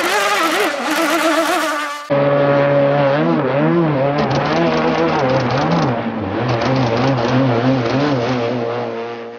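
Radio-controlled racing hydroplane's motor running at speed across the water. Its pitch wavers up and down as the throttle and turns change. About two seconds in, the sound cuts abruptly to a second, lower-pitched run of the same motor sound, which fades out at the very end.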